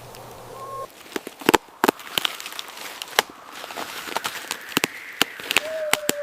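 Irregular sharp snaps and crackles, a few a second, with a short whistling tone near the end.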